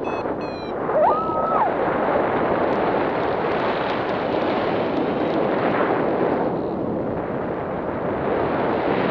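Wind rushing over the microphone of a paraglider pilot in flight: a loud, steady roar of wind noise.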